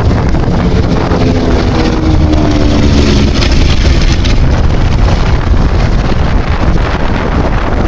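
Lockheed P-38 Lightning's twin Allison V-1710 V12 engines as the aircraft passes, the engine note dropping slightly in pitch as it goes by, under heavy wind noise on the microphone.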